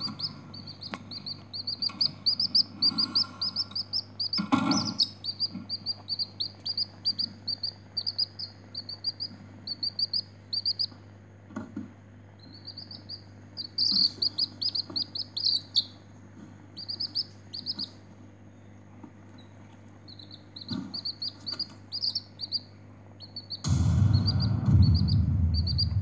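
A young chick peeping: runs of short, high chirps, several a second, with a few pauses. A louder low rustling noise comes in near the end.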